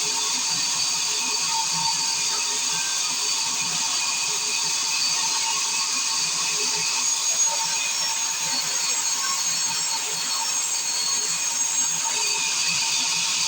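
Sawmill circular saw running steadily with a high, even whine over a hiss.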